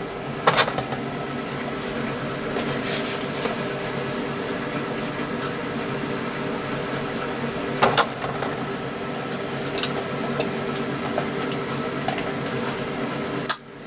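Small SIP MIG welder arc burning in a steady run while welding the end of a chain, with a few sharp pops and crackles; it cuts off suddenly near the end as the trigger is released.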